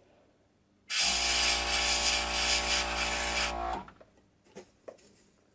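A motor-driven jet of air hissing steadily over a low electric hum for nearly three seconds, switched on and off abruptly.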